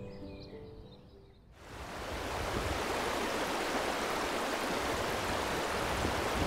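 Shallow stream running over a gravelly bed: a steady rush of flowing water that comes in about a second and a half in as soft music fades away.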